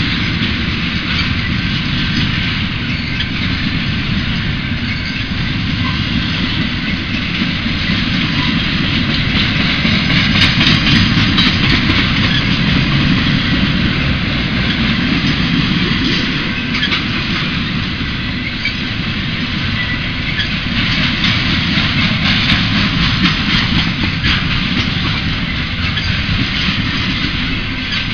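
Union Pacific intermodal freight train's cars rolling past, a steady loud rumble and rattle of steel wheels on the rails.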